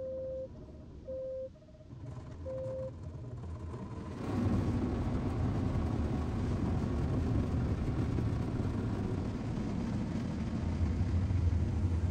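Volvo XC40 parking-sensor warning tone: a steady beep that breaks into two short beeps. About four seconds in, the automatic car wash starts with a loud, steady rushing rumble of machinery and water against the car.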